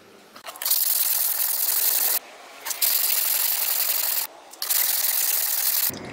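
Steel kitchen-knife blade held flat and scrubbed back and forth on a wet whetstone, a gritty scraping in three long spells with short pauses between. The flat face is being ground down to bring the hard steel core (hagane) back out to the edge.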